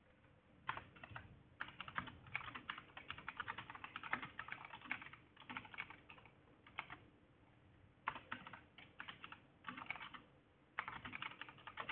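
Typing on a computer keyboard: quick runs of faint key clicks broken by short pauses, with a longer pause about two-thirds of the way in.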